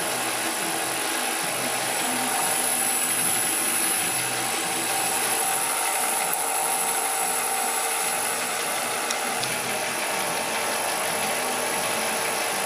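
Belt-driven milling machine running without cutting, giving a steady mechanical whir with a faint steady tone in it.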